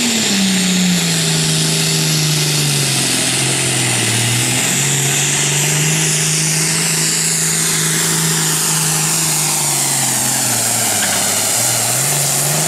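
John Deere 8410 super farm pulling tractor's diesel engine running flat out under load as it drags the weight-transfer sled. The engine pitch sags about four seconds in, recovers, and sags again near the end as the load builds.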